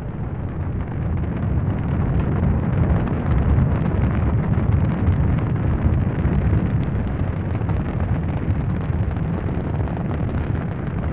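Rocket engines firing at liftoff: a deep, continuous rumble with dense crackle. It builds over the first few seconds and then eases slightly.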